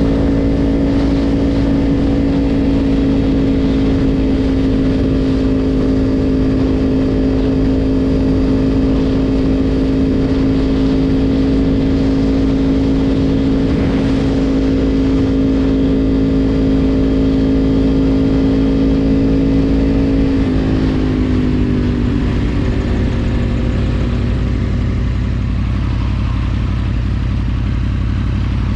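Yamaha YZF-R1 sport bike's inline-four engine running at steady revs under way, with a low rumble of wind and road underneath. About two-thirds of the way through the engine note falls over a few seconds as the throttle is eased, then holds at a lower pitch.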